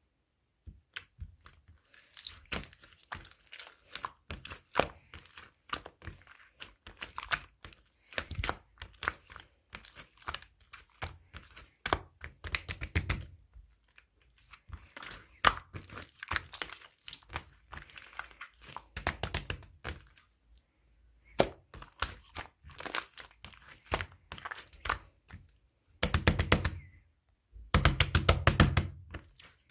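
Clear slime being worked by hand, giving irregular sticky clicks and pops, with two stretches of dense, louder popping near the end.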